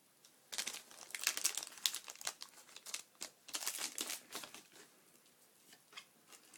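Foil Pokémon card booster-pack wrapper crinkling as it is handled and torn open, for about four seconds, then stopping.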